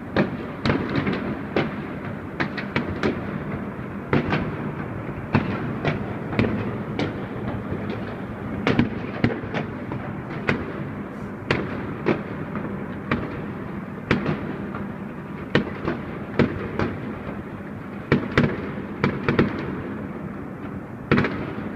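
Fireworks and firecrackers exploding all around without pause: a continuous rumble of distant blasts with frequent sharp, irregular bangs, some of them close.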